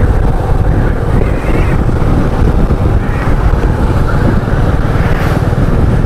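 Royal Enfield Meteor 350's single-cylinder engine running at a steady cruise, heard from the rider's seat with wind rushing over the microphone.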